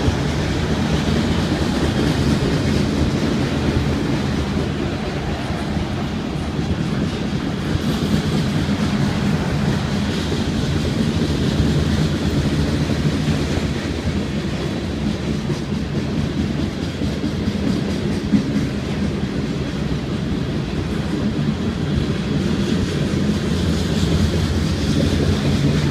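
Freight train cars rolling past at a steady speed: a continuous, even noise of wheels on the rails.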